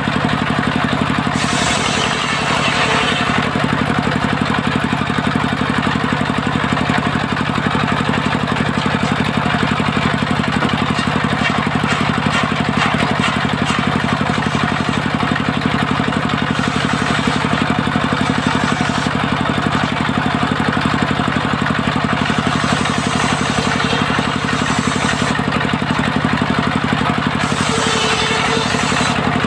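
Circular saw blade spinning on a sawmill table, its drive motor running steadily underneath. Several times the sound brightens as the blade rips through waru (sea hibiscus) boards being cut into rafters and battens.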